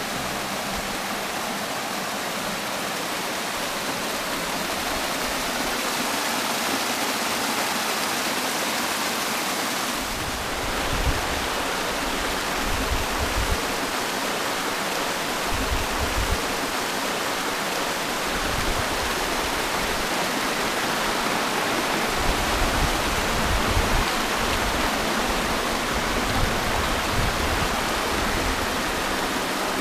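Small mountain-stream waterfall splashing over rocks, a steady dense rushing of water. From about ten seconds in, irregular low rumbles come and go under it.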